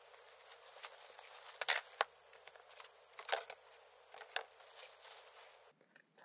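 Plastic wrapping crinkling and a cardboard box rustling as the contents of a parcel are pulled out and handled, with a few sharp knocks. The loudest knocks come about a second and a half in.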